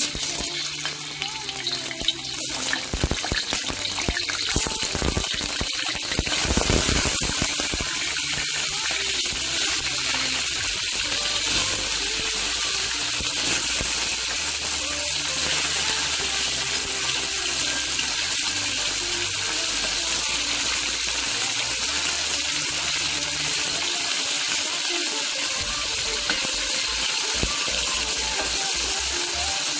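Chicken wings sizzling in hot oil in a wok: the frying hiss starts suddenly as the wings go into the oil, then holds steady.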